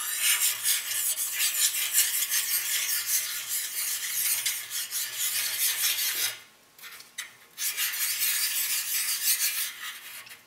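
A hand sharpening stone scraped in repeated strokes along the edge of a planer blade, honing the freshly ground edge. It stops for a second or so just past the middle, then the scraping strokes start again.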